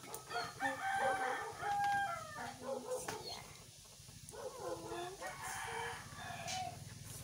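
A rooster crowing: one long crow with held notes in the first two seconds, then shorter calls a few seconds later.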